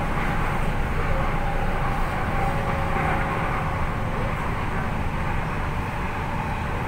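Running noise of an MTR Tung Chung line K-stock train, heard from inside the carriage: a steady rumble of wheels on rail with a faint whine over it.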